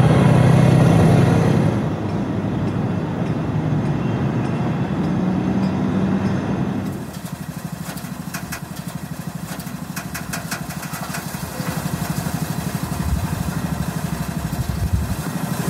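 Small motorcycle engine running as it rides along a street. About seven seconds in it drops to a quieter, evenly pulsing idle with a few sharp clicks.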